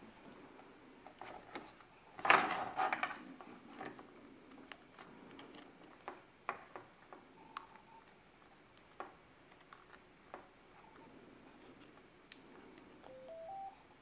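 Handling clicks and clatter of a Yaesu FT-60 handheld radio and a speaker-mic's 3.5 mm plug being pushed into its jack, with a louder clatter about two seconds in. There are a couple of single short beeps midway, then near the end a quick run of three beeps, each higher than the last, as the radio is switched on.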